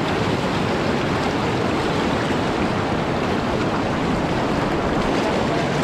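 River water rushing steadily, an even, unbroken rush of water.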